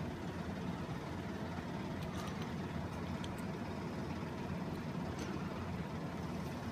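Steady low background hum, with a few faint light clicks of small metal clock-movement parts being handled and fitted together.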